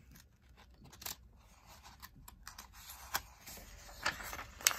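Page of a hardcover book being lifted, turned and pressed flat by hand: faint paper rustling with a few crisp clicks, the loudest near the end.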